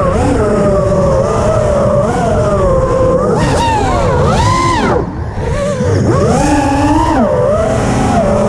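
FPV quadcopter's motors and propellers whining, pitch rising and falling constantly with the throttle, with a sharp surge and then a brief drop about five seconds in as the throttle is chopped during a manoeuvre. Wind rush on the onboard microphone underneath.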